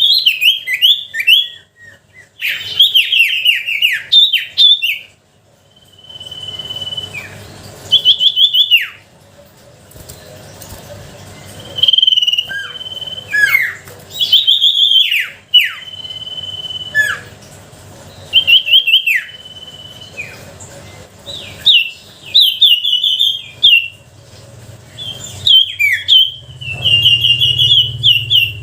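Common iora (sirtu) singing in repeated loud phrases: long steady whistles that often end in a sharp downward slur, alternating with quick rattling trills, with short pauses between phrases. A low hum rises faintly under the song near the end.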